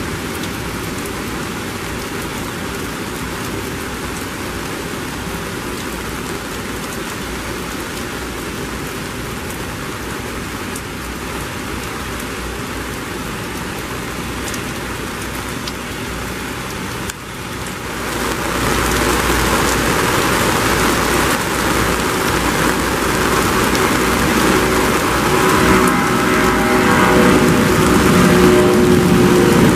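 Heavy rain falling steadily. After a break about 17 seconds in it grows louder, and near the end a jet airliner's engines come through with rising tones as it spools up for takeoff.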